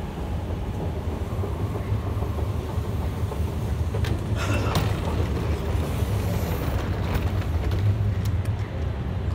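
Steady low rumble of a metro station, with a few sharp clicks and taps in the second half.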